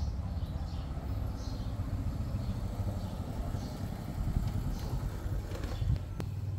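Steady low rumble of engine traffic, with a few faint high chirps now and then and one sharp click near the end.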